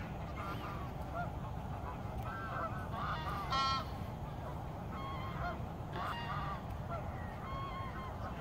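A flock of geese on the water honking, short calls overlapping again and again, the loudest about three and a half seconds in, over a steady low rumble.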